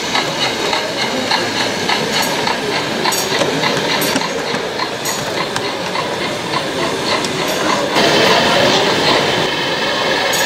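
Model trains running on a model railway layout: many small, regular clicks of wheels over rail joints above a steady rumble, which grows louder about eight seconds in.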